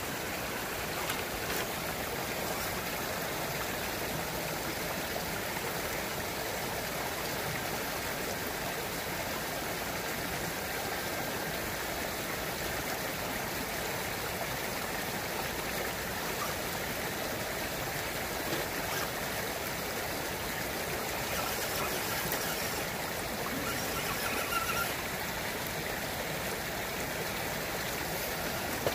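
Shallow, rocky creek running steadily over stones, a constant even sound of flowing water close by.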